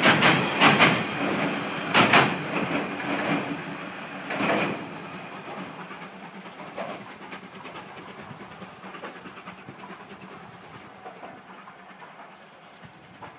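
Wheels of a C11 steam train's passenger coaches clacking over the rail joints of a steel bridge, loud with a few sharp knocks in the first five seconds, then fading steadily into a faint rumble as the train moves away.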